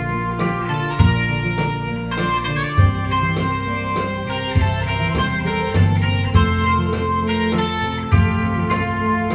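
Instrumental break of a Korean folk song played live, led by plucked guitar over steady low bass notes, with no singing.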